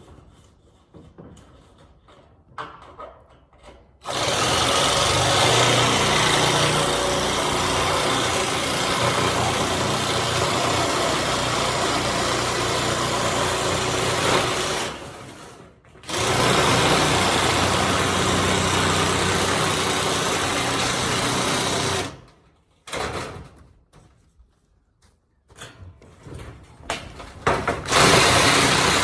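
Cordless drill driving a DeWalt metal shear attachment, its blades going back and forth as it cuts sheet-metal roofing. The loud, steady cutting starts about four seconds in, pauses briefly, runs again, stops with a few knocks, and starts up once more near the end.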